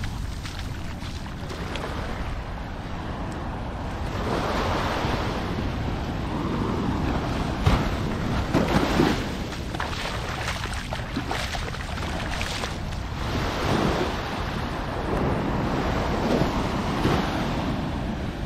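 Wind rumbling on the microphone over the wash of waves on the beach, swelling and easing every few seconds. A couple of brief knocks come about halfway through.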